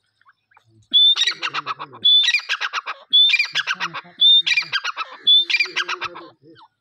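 Grey francolin (teetar) calling: five loud phrases about a second apart. Each phrase opens with a short high whistle and runs into a fast stuttering series of harsh notes.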